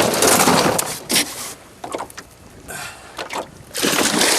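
Camera handling noise: the camcorder being moved and rubbed about, loud rustling and knocking on its microphone for the first second and a half, scattered clicks, then another loud rustle near the end.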